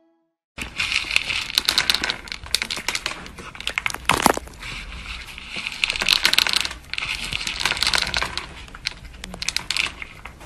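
A cat eating dry kibble from a plastic bowl: close, crackly crunching and rattling of the pellets as it chews and paws at them, starting about half a second in. There is a sharper clatter about four seconds in.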